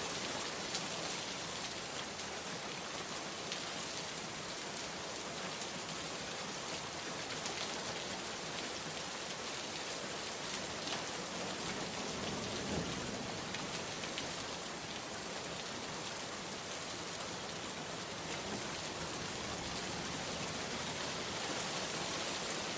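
Steady rain falling on a surface: a dense, even hiss with scattered individual drops ticking through it.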